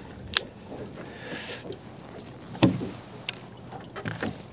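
Fishing rod and reel handled in a small boat: a sharp click, a brief hiss, then a heavier knock about two and a half seconds in and a few lighter clicks and knocks as the rod is set into a holder.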